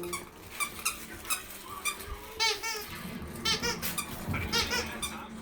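Squeaky dog toy being chewed, giving many short, high-pitched squeaks in quick clusters.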